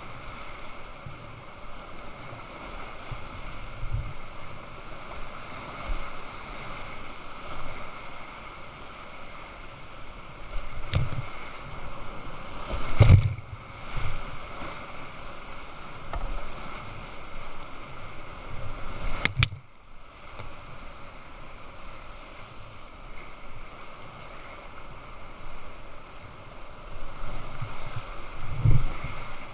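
Whitewater rapids rushing around a kayak, heard up close from the boat. Several sudden splashing thumps of waves and paddle strokes hitting the boat and the wet camera stand out, the loudest about 13 seconds in, another at about 19 seconds, and one near the end.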